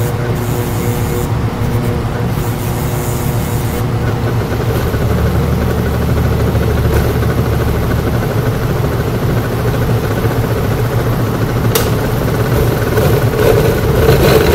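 Old countertop blender's motor running steadily under load, churning a thick mix of chopped vegetables, a little louder near the end. The blender is overheating, giving off a burning smell, which the owner fears means it is about to give out.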